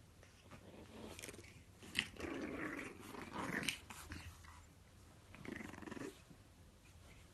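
A puppy vocalizing in two short bouts: a longer one from about two to four seconds in, opening with a sharp click, and a shorter one about five and a half seconds in.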